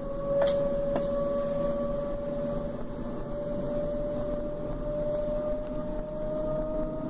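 Whine of a DB class 425 electric multiple unit's traction equipment heard from inside the train, a steady tone slowly rising in pitch as the train gathers speed, over the running noise of the wheels. Two sharp clicks about half a second and one second in.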